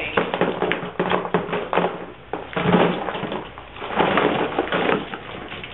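A heap of squeezed-flat, wrung-out oil paint tubes being handled and pushed around, making an irregular crinkling, crunching clatter.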